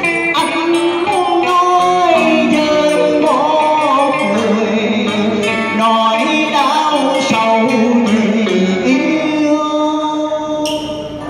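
A man singing a cải lương excerpt into a microphone, his voice bending and sliding between notes, over plucked electric guitar accompaniment.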